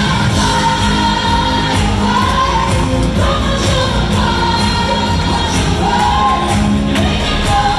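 Live pop song: a female lead singer holding long notes with vibrato, backed by harmony singers, drums, keyboards and a string section, playing steadily.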